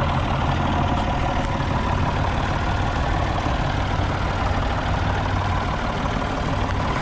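LPG-fuelled Linde forklift engine running steadily at low revs as the truck drives slowly.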